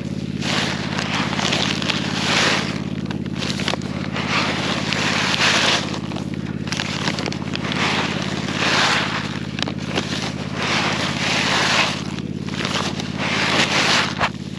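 Engine of a ride-on machine running steadily at a constant speed, with gusts of wind noise on the microphone rising and falling over it.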